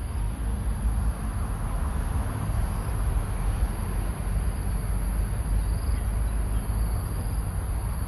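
Insects droning in one steady high-pitched band, over a continuous low rumble.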